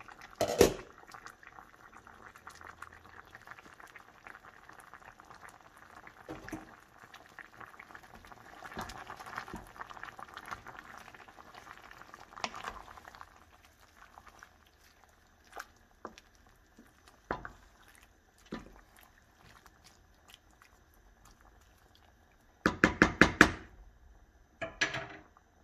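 Pork braising in a pot of liquid, simmering with a steady fizzy bubbling, and a sharp knock about half a second in, as of a pot lid. Near the end comes a quick run of loud metallic rattles, then a shorter one, as the pot is shaken.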